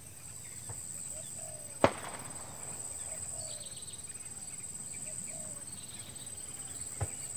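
Distant sharp bangs from farmers scaring wild Sumatran elephants off the plantations: one loud crack about two seconds in and a fainter one near the end. A steady high insect drone and bird calls carry on underneath.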